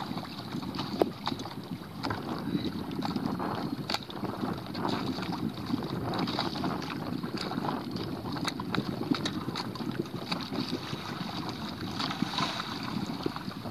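Shallow water sloshing and splashing around a kayak, with wind buffeting the microphone. Short sharp knocks and splashes come through it every so often.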